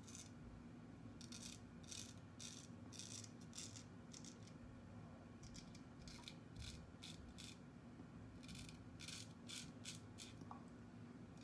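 Vintage 5/8 Kinfolks straight razor scraping stubble off the upper lip in short strokes. The strokes come as a string of faint, crisp scratches, some in quick clusters.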